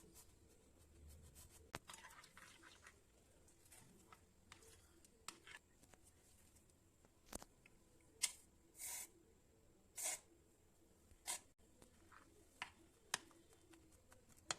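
Faint handling sounds of slime-making: scattered light clicks and taps, with a few short swishing scrapes about two-thirds of the way through.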